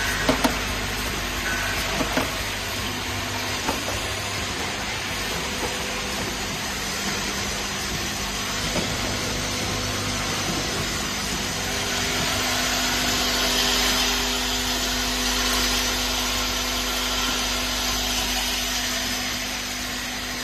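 Automatic plastic vial filling and capping machine running with a steady mechanical hum and whir. A few light plastic clicks at the start as plastic vials drop into a plastic bin.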